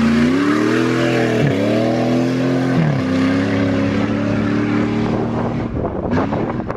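Off-road vehicle's engine revving hard under acceleration. Its pitch climbs and drops back sharply twice, then holds steady and fades away near the end, where wind buffets the microphone.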